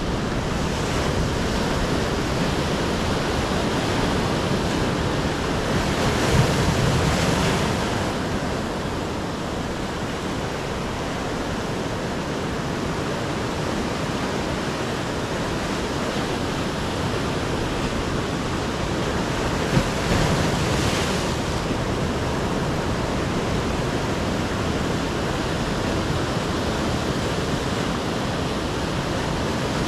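Ocean surf breaking and washing over a rocky shore, a steady rush of waves with louder surges about six seconds in and again about twenty seconds in.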